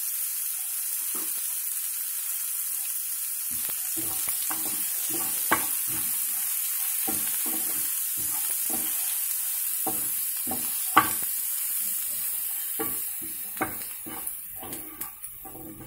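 Chopped onions, green chillies and curry leaves sizzling in oil in a frying pan. From about three seconds in, a spatula scrapes and stirs them in quick repeated strokes, knocking sharply on the pan twice.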